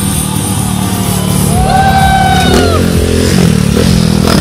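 Loud electronic music playing, with a stunt motorcycle's engine revving up and back down about halfway through as the bike wheelies.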